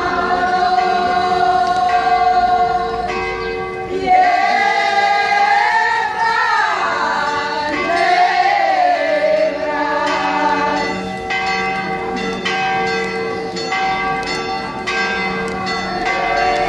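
A choir singing, the melody sliding up and down over held notes, with church bells ringing; from about eleven seconds in, the bells strike in a quick, even run of about two strokes a second.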